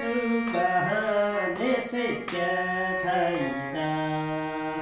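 A man singing a Hindi devotional song to a small electronic keyboard: a wavering sung phrase over the keyboard's sustained notes, and near the end only a steady held keyboard chord.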